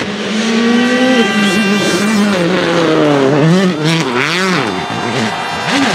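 Hyundai i20 WRC rally car's 1.6-litre turbocharged four-cylinder engine running hard as the car passes and slides through a gravel corner. The revs hold fairly steady at first, then swing down and up quickly several times through the second half.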